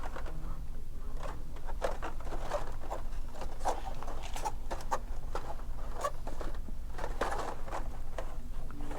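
Irregular light clicks, rustles and scrapes of things being handled, over a steady low hum.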